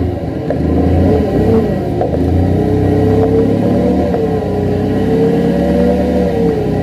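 Forklift engine running under load, with a whine that rises and falls as the hydraulic control levers are worked.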